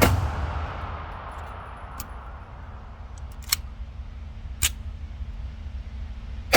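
A few gunshots spaced irregularly over a steady low rumble: a loud sharp crack at the start, then three fainter cracks over the next few seconds.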